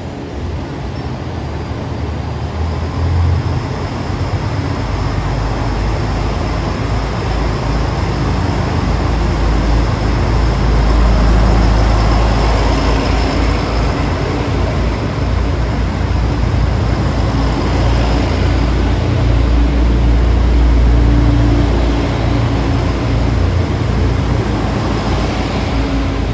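Kyoto Tango Railway KTR8000 diesel express railcar pulling slowly into the platform and passing close by, its diesel engines giving a deep, steady rumble that swells in the middle as the cars go past.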